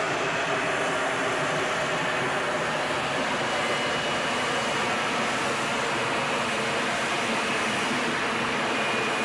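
Jet engine running steadily, a constant roar with a faint high whistle.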